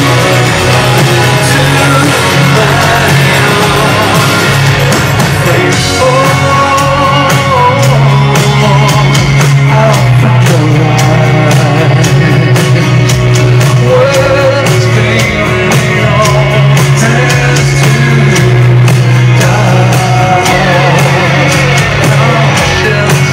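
Live rock band playing with a male voice singing over it. From about six seconds in, cymbal strokes keep a steady beat.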